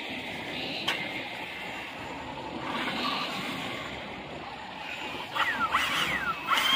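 Outdoor background noise, then from about five seconds in a battery-powered hydraulic rescue cutter (jaws of life) whose electric pump motor whines up and falls away in several short pulses.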